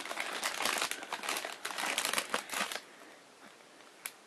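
Crinkly packaging being crumpled and rustled by hand as a blind-box vinyl figure is unwrapped, for about three seconds. Then it goes quiet apart from a single click near the end.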